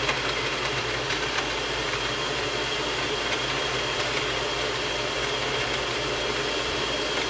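Smoothie-maker blender motor running steadily with a whine, spinning dry ogbono seeds in red oil. There is too little oil for the seeds to go around and blend smoothly.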